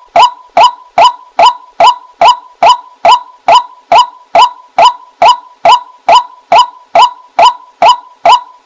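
White-breasted waterhen calling: a loud, monotonous series of identical short 'kwak' notes, about two and a half a second, at an unchanging pace. It is a lure call played back to draw waterhens in.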